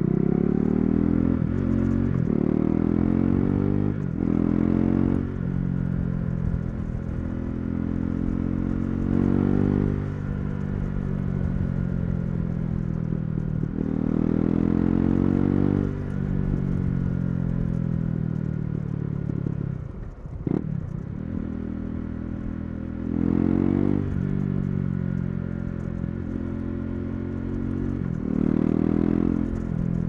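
KTM Duke 390's single-cylinder engine through an Akrapovic exhaust, revving up through the gears, the pitch climbing and dropping back at each upshift. About two-thirds of the way through it eases off with a short sharp pop, then pulls through the gears again.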